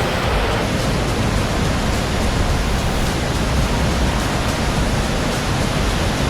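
Steady, loud rushing of a large waterfall, an even noise without breaks.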